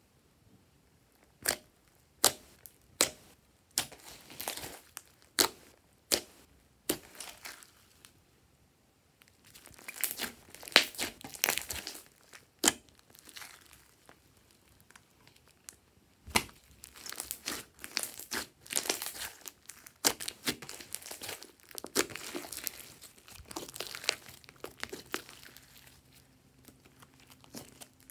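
Brown and blue glossy slime being stretched, pulled apart and squeezed by hand, giving sticky pops and crackles. Single sharp pops come in the first few seconds, with denser crackling about ten seconds in and again from about sixteen seconds.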